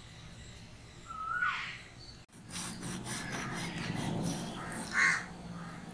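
A bird gives one short chirp, then a kitchen knife rasps and scrapes as it saws deep scoring cuts through the scales and skin of a large whole fish, with a brief louder sound about five seconds in.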